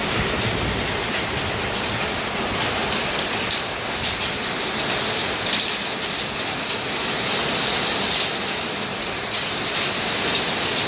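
Heavy rain mixed with hailstones, a steady dense rush with many small hard impacts pattering on surfaces such as a roof.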